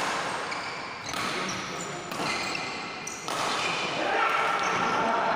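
Badminton rally: rackets striking the shuttlecock about once a second, each hit a sharp crack.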